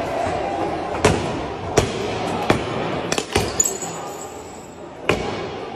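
A series of sharp bangs and knocks, about seven, irregularly spaced roughly a second apart, with a brief high ringing after a cluster of them around the middle, over background noise of people in a large echoing hall.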